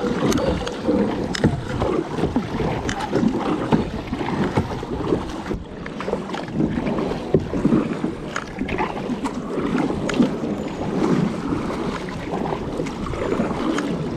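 Kayak paddle strokes splashing and dipping into river water, repeating irregularly, with wind rumbling on the microphone.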